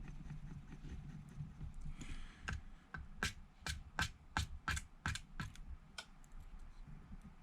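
Precision screwdriver being magnetized to hold small screws: after a brief scrape, a run of about a dozen sharp clicks, two or three a second, as the steel tip is struck repeatedly against the magnetizer.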